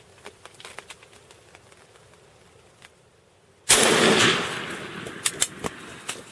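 A single shotgun shot about two-thirds of the way in, sudden and loud, with an echo that fades over about a second. A few sharp clicks and knocks follow, and faint scattered ticks come before the shot.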